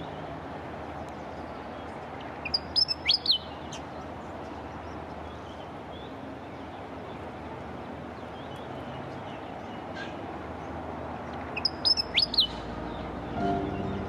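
Willie wagtail calling: two short bursts of several sharp, high chirps, about three seconds in and again near the end, over a steady low background hum.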